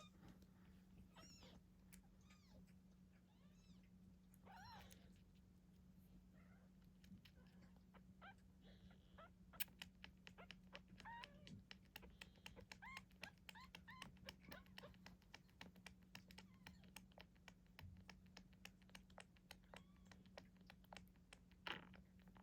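Nine-day-old kittens mewing faintly, with thin high cries that rise and fall, several in the first few seconds. From about ten seconds in come rapid soft clicks or smacks, with a few more faint mews, over a steady low hum.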